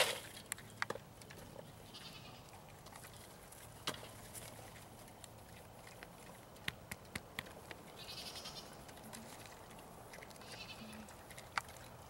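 Pigs feeding from metal bowls: feed poured from a scoop and clinks and knocks against the bowls, the loudest right at the start. Three short, high animal calls come about two, eight and ten and a half seconds in.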